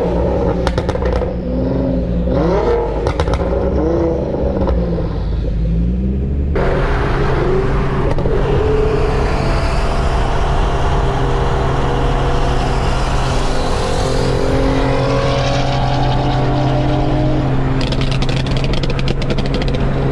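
Infiniti G35 coupe's twin-turbo VQ35DE V6 revving up and down as the car slides sideways. After a sudden change about six seconds in, engine and road noise at highway speed, with the engine note rising steadily as the car pulls.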